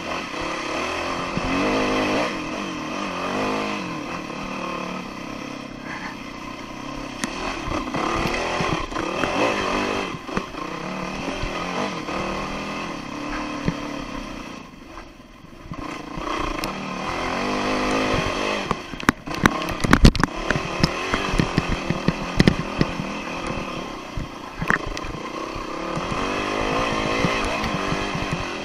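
Dirt bike engine revving up and down repeatedly on a trail ride, with a brief easing off midway. About two-thirds of the way through comes a quick run of loud knocks and clatter, the loudest moment.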